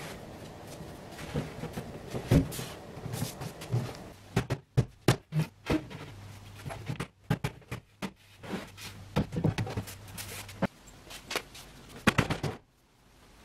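Irregular knocks, clunks and taps of MDF wardrobe carcass panels and shelves being handled and shifted by hand, as the carcass is taken apart to refit a divider. A steady low hum starts about halfway and stops a few seconds before the end.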